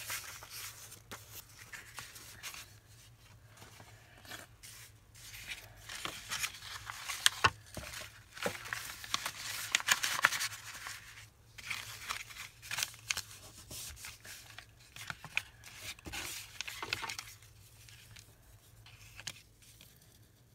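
Sheets of paper rustling and crinkling as loose collage papers are handled, moved and laid down, with small taps and scrapes on the table. The rustling is busiest near the middle.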